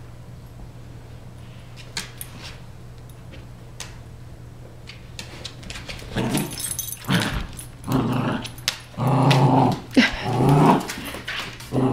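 Dogs growling in play during a tug-of-war over a rope toy. The growls come in a run of short bursts starting about halfway through and are loudest near the end.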